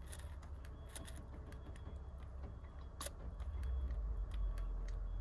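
Faint clicks and a low rumble as the fuel pump's priming lever is worked to bleed air out through the loosened bleed bolt on a Yanmar 3GM30F diesel's injection pump. One sharper click comes about three seconds in, and the sound grows slightly louder near the end. Air is still being purged from the low-pressure fuel line.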